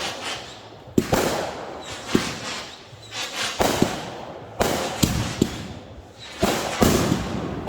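Consumer fireworks going off: a string of sharp bangs, about one a second and sometimes two close together, each followed by a fading crackle and hiss.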